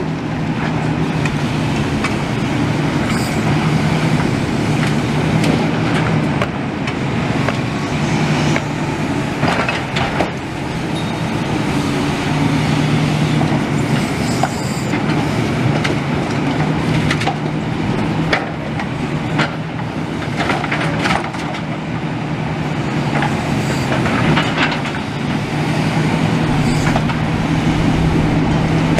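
A demolition machine's engine running steadily, with scattered knocks and clanks of metal and rubble as rebar and girders are pulled from the debris.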